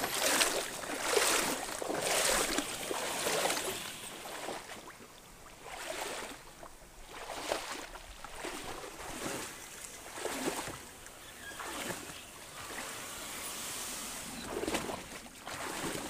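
Loaded canoe being hauled through a shallow, reed-choked creek: repeated swishing and splashing as the hull pushes through grass and brush and water is churned, about once a second at first and then less often.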